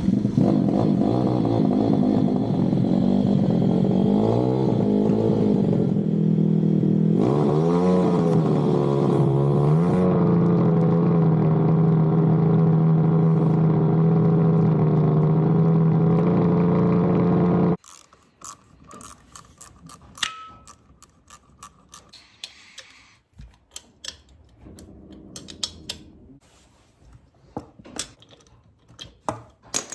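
Pit bike engine running on a dyno, running badly, with its revs rising and falling twice. It cuts off suddenly about eighteen seconds in, leaving scattered light clicks and taps.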